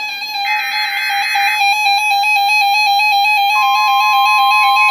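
An EAS SAME digital header burst from a NOAA Weather Radio receiver, a harsh buzzing data screech about half a second in lasting about a second. About three and a half seconds in, the steady 1050 Hz NOAA Weather Radio warning alarm tone begins, signalling an incoming warning. A keyboard melody plays in the background throughout.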